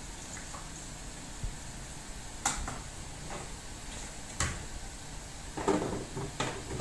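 A few light clicks and knocks of plastic feeding-bottle parts and a brush being handled and set down during washing: single ones about two and a half and four and a half seconds in, then a short cluster near the end.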